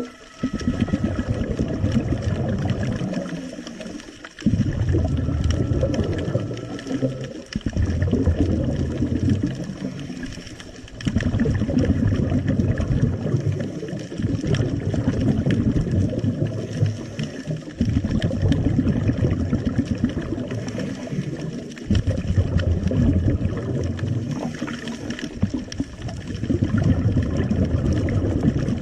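Scuba diver's exhaled bubbles from the regulator, heard underwater through the camera housing: a bubbling noise in long bursts every three to four seconds, with short breaks between them.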